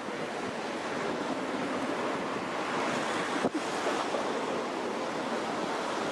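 Steady rushing noise of the flooded Elbe flowing high and fast, mixed with wind on the microphone.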